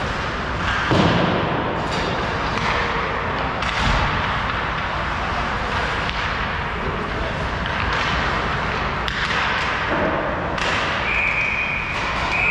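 Ice hockey game sound in a rink: a steady wash of skating and arena noise broken by sharp stick and puck knocks, the loudest about a second in. Near the end a long, steady high tone starts and holds.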